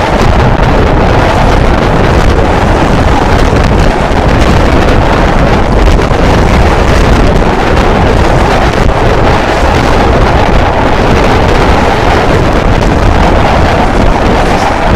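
Passenger train running at speed across a steel railway bridge: a loud, steady rumble and rush of wheels on rail, with wind buffeting the microphone.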